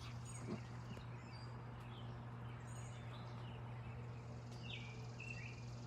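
Faint, scattered chirps of distant songbirds in a quiet evening, with a few short calls near the end, over a low steady hum.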